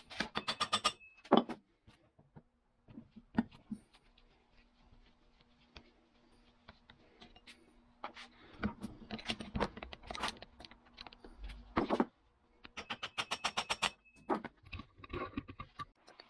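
Screwdriver and steel parts of a Wilton bullet vise clicking and scraping against each other during disassembly: scattered knocks and several short runs of rapid clicks, with quiet gaps between them.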